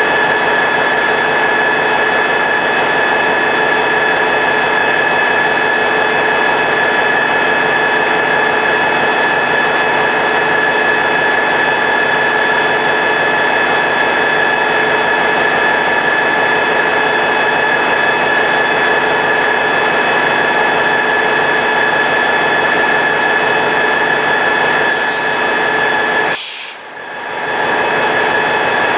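CSX diesel freight locomotive running steadily close by, a loud even engine sound with a constant high whine. The sound drops out for about a second near the end.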